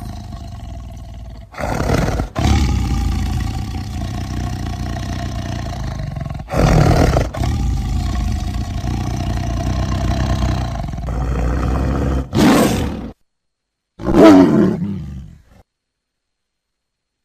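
Tiger roaring and growling: loud roars about 2, 7 and 12 seconds in, with a deep rumbling growl between them. After a short break, a final roar falls in pitch about fourteen seconds in.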